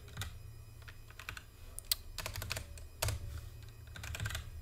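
Computer keyboard being typed on, keys clicking in short irregular runs, over a steady low hum.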